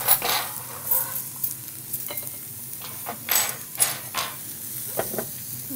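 A whisk stirring and scraping water around a hot stainless-steel frying pan in irregular strokes, with a faint sizzle: deglazing that lifts the browned cooking residue off the pan.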